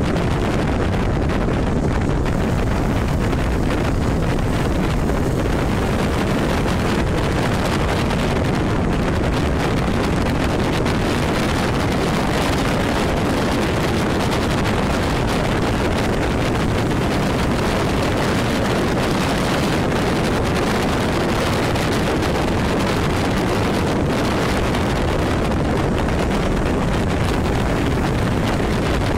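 Steady wind rush buffeting the microphone of a camera on a motorcycle at speed, with the bike's road and engine noise underneath.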